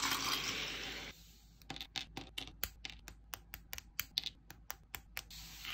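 Small plastic snap-fit figure-kit parts being handled: a brief dry scraping rustle, then a quick run of sharp plastic clicks, about three or four a second, as pieces are pressed and snapped together, and another short scrape near the end.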